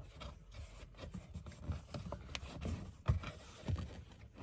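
Hands rubbing and lightly knocking on the BMW E60's dashboard trim, an irregular rustle with scattered small clicks and one sharper knock about three seconds in.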